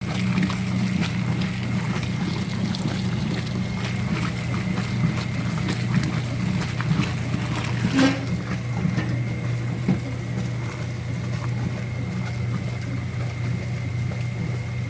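Brastemp Super Luxo washing machine running on a test wash after a refurbishment: a steady motor hum with water noise and a faint, steady high whine. A single sharp click about eight seconds in.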